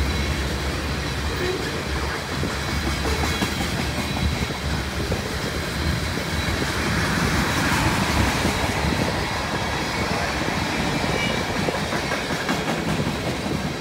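CN freight train's tank cars and covered gondolas rolling past, steel wheels clicking and clattering over the rail joints in a steady stream of noise.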